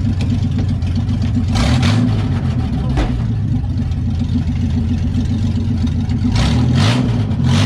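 Ford Mustang V6 engine idling, with a couple of short revs about two seconds in and again near the end.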